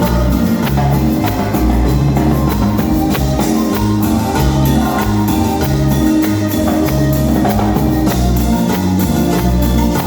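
Band music without vocals: a steady drum beat over a repeating bass line.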